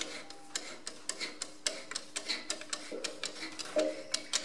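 Irregular metallic clicking and ticking, a few clicks a second, as a screwdriver turns a threaded adjuster into the draft link spring housing of a Ferguson FE35 tractor.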